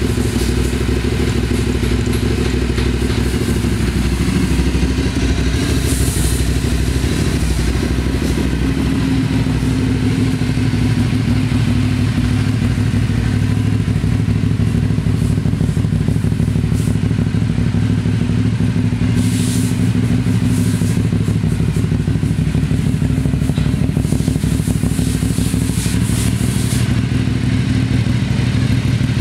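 2011 Aprilia Shiver 750's V-twin engine idling steadily through a side-mounted aftermarket silencer, with no revving.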